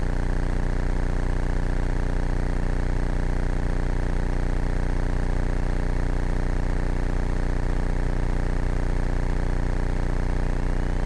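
Steady drone of a Cessna 172K's four-cylinder Lycoming O-320 engine and propeller in flight, heard from inside the cabin, holding an even pitch and level.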